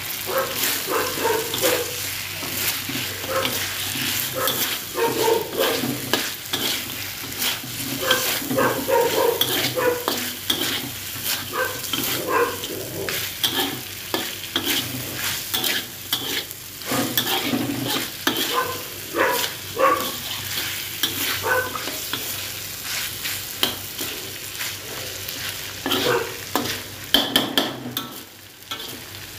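Pieces of meat frying in a large black metal wok, sizzling steadily while a metal spatula scrapes and tosses them over the pan in many short, irregular strokes.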